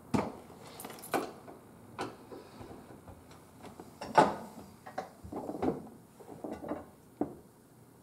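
A string of separate knocks and clicks from a screwdriver and the door of a Frigidaire dishwasher as the door's screws are tightened and the door panel is handled. The loudest knock comes about four seconds in.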